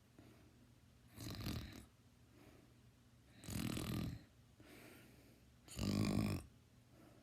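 A teenager snoring loudly in sleep: three snores about two and a half seconds apart, the last the loudest, with fainter breaths between them.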